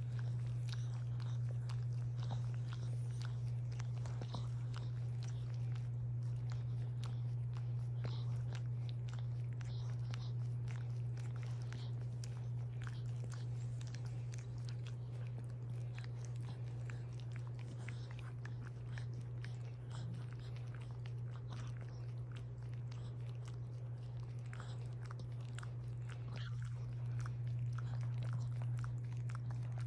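A small dog licking and nibbling at another dog's head and ear up close, a run of quick wet mouth clicks, over a steady low hum.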